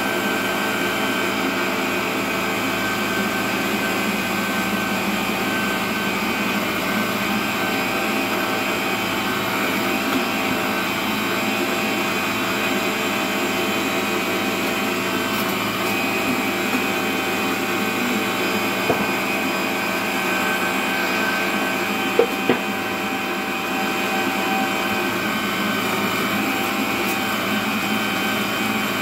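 Electric stand mixer's meat-grinder attachment running steadily under load as it grinds meat, a constant motor whine with several steady tones. A few brief knocks sound about two-thirds of the way through.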